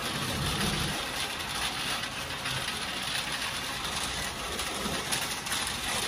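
Shopping cart being pushed along a store floor, its wheels and wire basket giving a steady rolling rattle.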